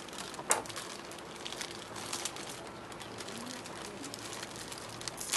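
Plastic instant-ramen packets crinkling as they are slit open with a knife and handled, with a few short sharp crackles, the loudest about half a second in.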